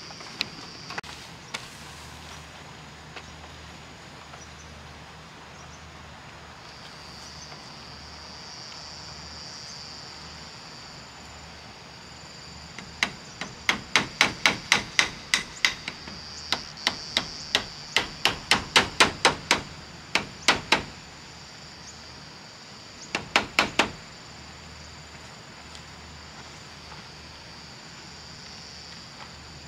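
Hammer driving nails in roof repair: two long runs of sharp blows at about three a second, then four quick blows near the end, over a steady high background buzz.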